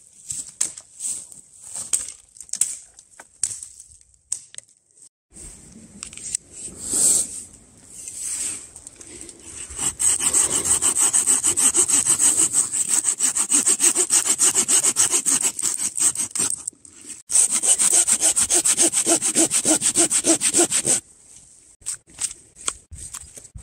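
Hand saw cutting through firewood in rapid, even strokes, in two bouts: the first starts about ten seconds in, and after a brief pause the second stops abruptly a few seconds before the end. Before the sawing there are scattered knocks and rustles.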